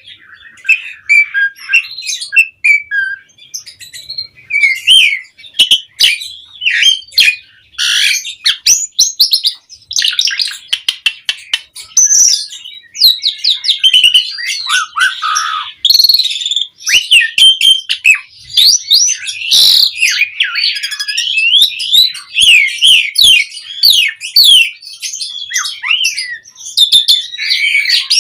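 Pied starling (jalak suren) singing its full 'mompa' display song: a continuous fast chatter of whistled sweeps, harsh squawks and sharp clicking notes.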